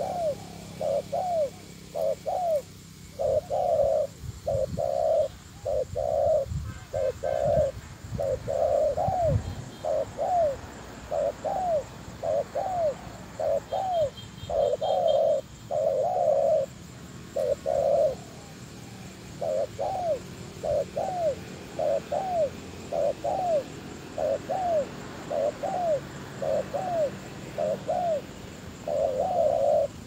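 Spotted dove cooing over and over in short, arching coos, about one to two a second, with a brief pause just past the middle.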